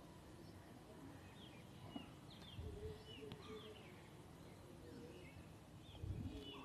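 Faint bird chirps: short, high, quick calls repeated throughout. Two soft low bumps, the louder near the end as the steel pressure-cooker lid is set on the pot.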